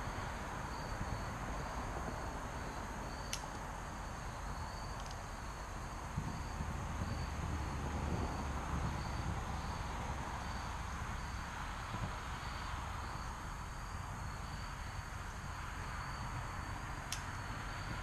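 Evening insects, crickets, chirping steadily, a high pulsing chirp about one and a half times a second over a continuous high trill, with a low steady rumble beneath. Two faint sharp clicks, one a few seconds in and one near the end.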